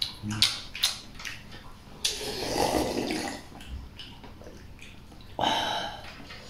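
A person slurping soup from a porcelain bowl: a few short clicks in the first second, then two longer slurps, one about two seconds in and one near the end.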